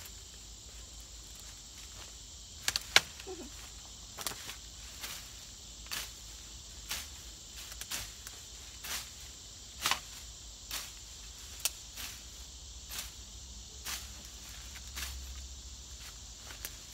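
Hand-held cane cutter blade swishing and chopping through tall weeds and grass, in sharp strokes about once a second. A steady insect chirring runs behind the strokes.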